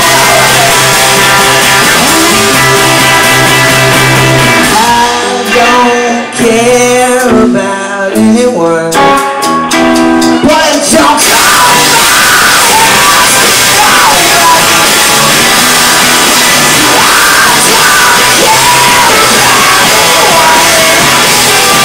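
Live rock band playing with electric guitars, drum kit and a singer at the microphone. About five seconds in the music thins to a passage of single pitched notes without the full band, and about eleven seconds in the full band comes back in with singing.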